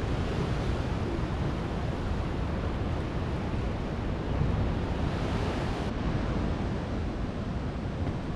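Ocean surf washing in steadily, with wind rumbling on the microphone; a wave swells up louder about five seconds in.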